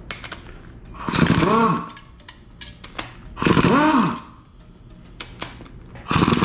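A handheld power tool runs in three short bursts, each spinning up and winding back down.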